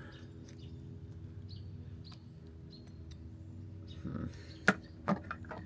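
Quiet workshop background with a faint steady hum. From about four seconds in come a few sharp clicks and taps of small metal parts and tools being handled, the pulley hardware and its washers.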